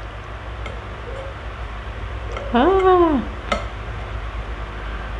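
Metal spoon stirring and lightly clinking in a glass bowl of noodle soup while misua noodles are fished out. A little after halfway comes a short voice-like sound that rises then falls in pitch, followed by a single sharp clink.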